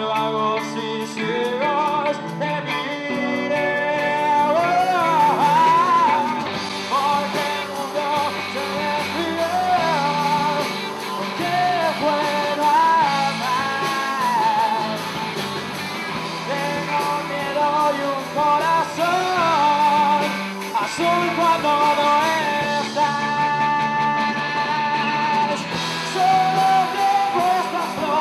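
A live rock band playing, with electric guitars, bass, drums and keyboard under sung lead vocals that come in about four seconds in.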